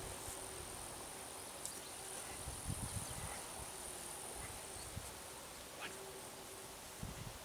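Meadow insects keep up a steady, high-pitched buzzing drone, with a couple of brief low rumbles about three seconds in and near the end.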